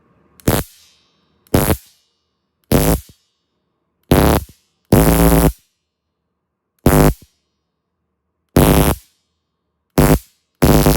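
Pen stun gun triggered in nine short bursts, each a loud electric buzzing crackle under a second long, with silence between; the fifth burst runs a little longer.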